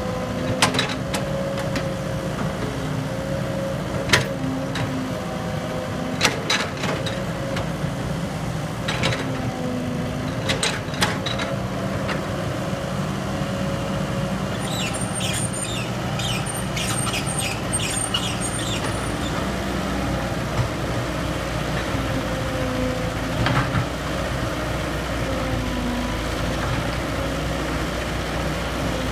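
Hydraulic excavator's engine running steadily while it works, with scattered sharp knocks and clanks. About halfway through there is a run of quick high chirps lasting several seconds.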